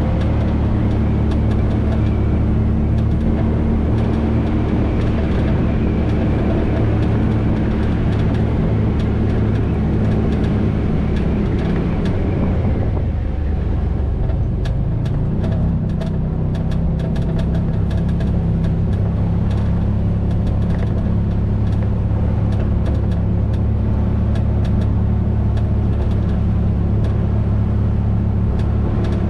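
Vehicle engine running steadily with tyres rolling over a dirt road, heard from on board. The engine note dips and shifts about halfway through, then settles at a new steady pitch, and scattered light clicks join in during the second half.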